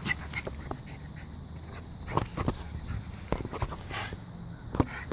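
A dog making brief, scattered noises, mixed with a few short knocks.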